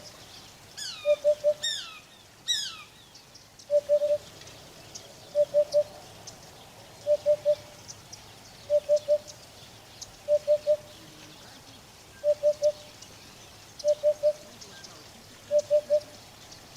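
Eurasian hoopoe singing its low hoop-hoop-hoop: groups of three short notes repeated about every one and a half seconds. Early on, another bird gives three quick high whistles that slide downward.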